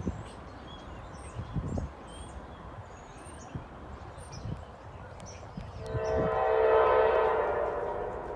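Diesel freight locomotive's air horn sounding one long blast, starting suddenly about six seconds in and fading out near the end. Before it there is only a quiet outdoor background with a few faint high chirps.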